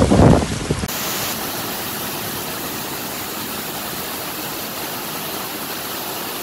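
Brief wind buffeting on the microphone, then a sudden change to the steady, even rush of muddy floodwater pouring down a street.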